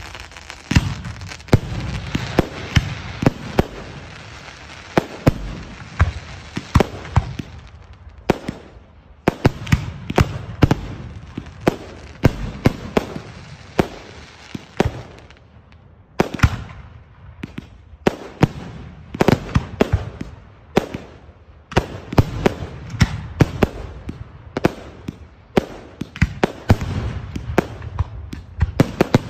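Professional aerial fireworks display: a rapid, irregular string of sharp bangs from bursting shells and rising effects, several a second, with short lulls about eight and fifteen seconds in.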